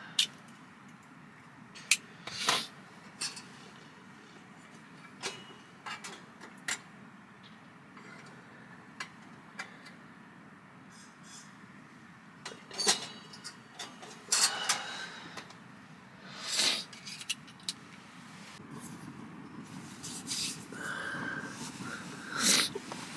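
Scattered clicks, knocks and short rustles of camping gear being handled, over a quiet background.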